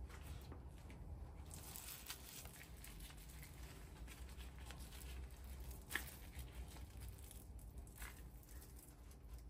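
Faint rustling and handling noises over a low steady hum, with one sharp click about six seconds in.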